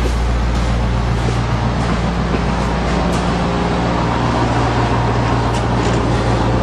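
International 7.3 L turbo-diesel V8 in a 1996 school bus, running steadily at an even idle in freezing weather, with a few faint ticks over it.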